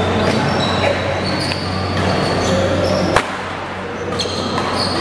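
Badminton doubles rally: players' shoes squeaking in short chirps on the court floor and rackets striking the shuttlecock, with one sharp loud hit about three seconds in. A steady low hum runs underneath.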